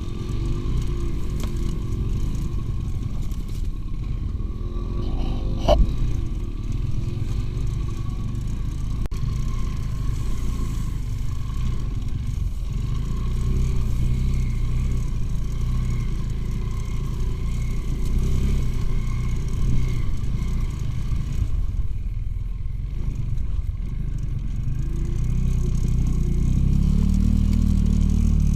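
Motorcycle engines running as the bikes move off-road, with a sharp knock about six seconds in and the revs rising near the end.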